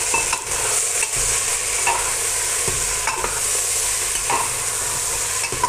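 Raw mutton sizzling in hot oil with fried onions in an aluminium pressure cooker while a metal spoon stirs it, scraping against the pot in irregular strokes over a steady frying hiss.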